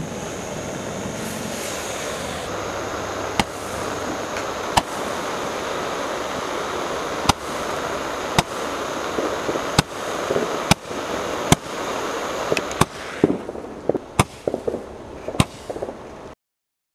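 Roman candle firing: a steady hiss with a sharp pop about every second as each star is shot out. Near the end comes a quick run of crackling pops, and then the sound cuts off suddenly.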